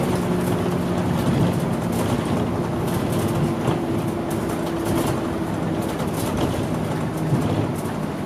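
Inside a 26-year-old Mitsubishi Fuso Aerostar two-step city bus under way: its diesel engine runs steadily, with road noise and light clicking rattles from the cabin.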